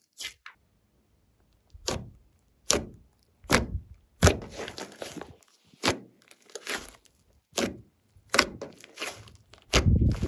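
Slime being worked by hand: a series of about a dozen short wet slaps or pops, each with a dull thud, roughly one every 0.8 seconds, starting about two seconds in.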